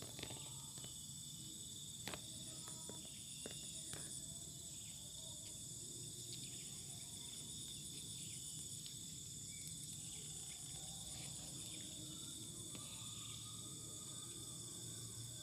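Faint, steady chorus of insects, a continuous high-pitched ringing, with a few soft clicks in the first few seconds.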